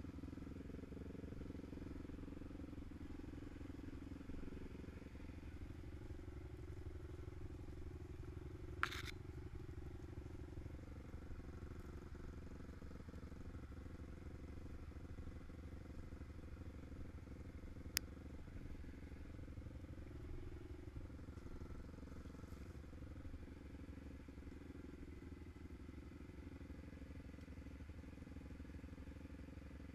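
Quad bike engines running steadily with no revving. Two sharp clicks stand out, about nine and eighteen seconds in.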